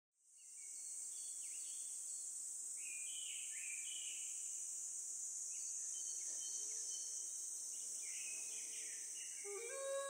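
Outdoor nature ambience fading in: a steady high insect drone with birds calling over and over in short sliding phrases. Near the end a recorder comes in on a held note.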